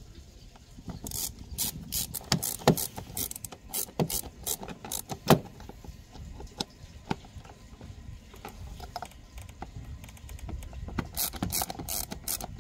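Hand ratchet with a T20 Torx bit clicking as it tightens small screws, in short runs of clicks, sparser in the middle and denser again near the end.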